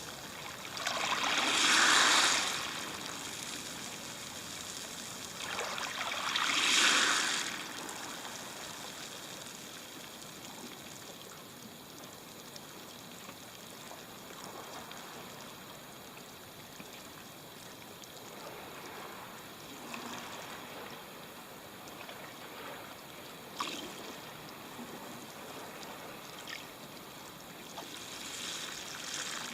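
Small waves washing up a pebble beach. Two louder surges of surf come in the first eight seconds, then a softer trickling wash with a few sharp stone clicks, and another smaller wave near the end.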